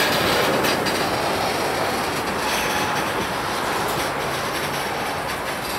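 Kansas City Southern freight train rolling past: a steady rumble of cars on the rails with scattered clicks from the wheels.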